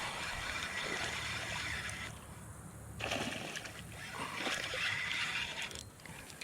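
Water splashing and sloshing as a hooked bass is fought and brought in at the surface, in two spells with a short lull about two seconds in.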